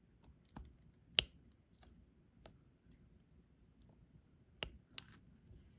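Scattered small clicks and taps of a diamond-painting drill pen picking up resin drills and pressing them onto the canvas. The sharpest click comes about a second in, and two more come close together near the end.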